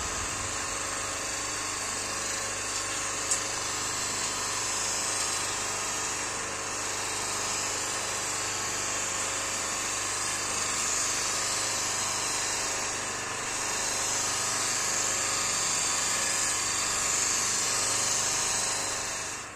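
Electric motor driving a polishing wheel on an extended shaft, a knife held against the spinning wheel: a steady motor hum under a continuous hissing rub as the knife is polished, with one short tick about three seconds in.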